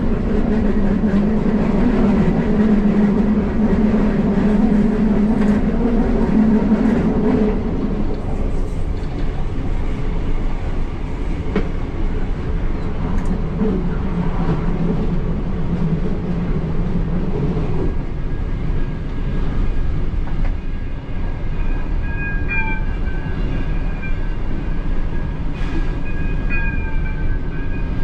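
Passenger train running along the line: a steady low drone that swells in the first third and again midway, with thin high squealing tones coming in during the last third.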